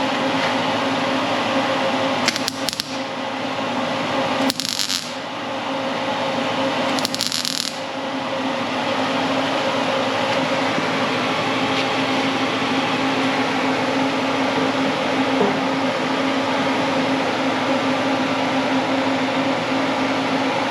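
Three short bursts of welder crackle, each about half a second long, as a sheet-metal patch is tack-welded into a car fender, over a steady fan-like hum.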